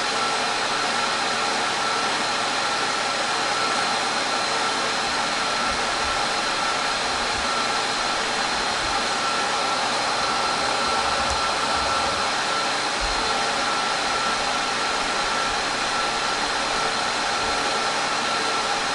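Cooling fans of a rack-mount 12-drive disk array running flat out, a loud steady rush of air with a thin high whine over it.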